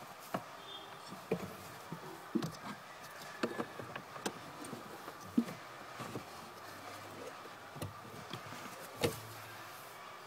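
Irregular plastic clicks, knocks and scrapes of a cabin air filter cartridge being handled and slid in its housing behind the glovebox, over a faint steady hum.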